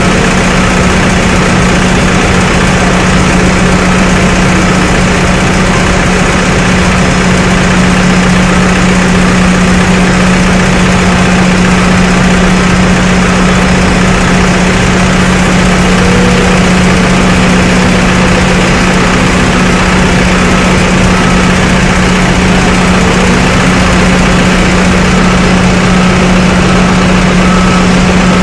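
Loud, steady machinery drone with a strong constant low hum, from engines idling on the airport ramp.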